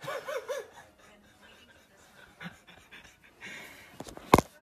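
A person's three quick breathy gasps right at the start, catching their breath after a fright, then near quiet with a few faint movements; a single sharp knock near the end.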